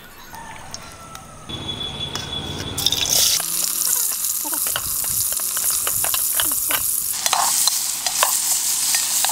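Sliced onions tipped into hot oil in a steel pot start sizzling loudly about three seconds in, and the sizzle keeps going. A steel ladle stirring them scrapes and clicks against the pot.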